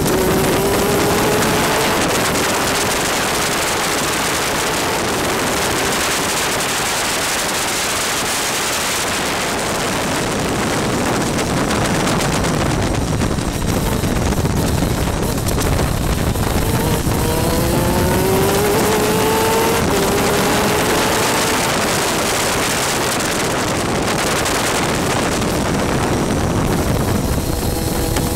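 Onboard sound of a 250cc two-stroke superkart engine at racing speed, its pitch climbing as it accelerates out of corners about a second in, several times around the middle-to-late part, and again near the end. A loud rush of wind and spray noise on the microphone from the soaking wet track covers much of the engine.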